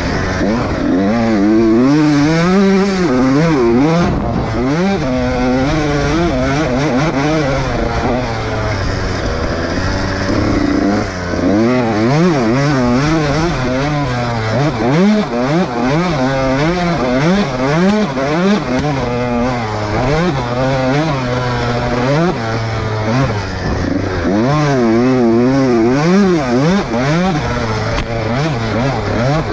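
Off-road motorcycle engine revving up and down hard in quick, repeated rising and falling sweeps, as when riding with the throttle worked on and off.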